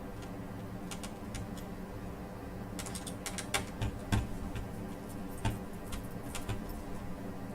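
Small sharp clicks and taps of a screwdriver and tiny screws against a laptop's plastic screen frame while the screws are driven in, bunched most closely together about three to four seconds in, over a steady low hum.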